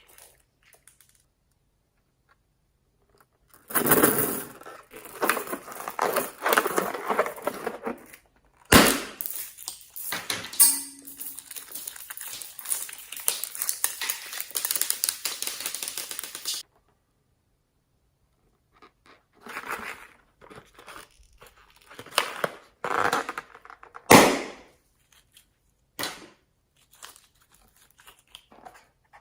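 Hands working slime and the things being mixed into it: crackling, crinkling handling noise with sharp knocks, the loudest near nine seconds and again near twenty-four seconds. After a silent start, the noise runs for about thirteen seconds, pauses, then comes back in short scattered bits.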